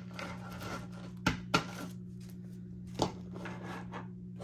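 Hand-handling of paper bills and cash-envelope sleeves: soft rustling, then three short sharp taps on the table, about a second in, just after, and again near three seconds. A steady low hum runs underneath.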